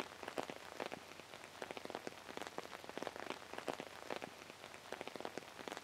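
Steady rain falling, with many separate drops landing as quick, irregular ticks over a soft hiss.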